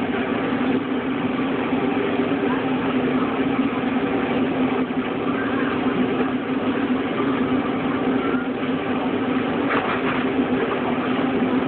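Steady low mechanical hum, like a motor or engine running evenly.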